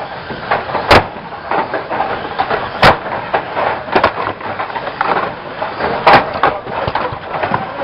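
Banger racing cars running and colliding: about five loud bangs of impacts a second or two apart over a constant noisy racket.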